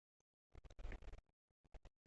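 Close-miked chewing and mouth sounds of someone eating: a dense run of crackly clicks about half a second in, then a few single clicks.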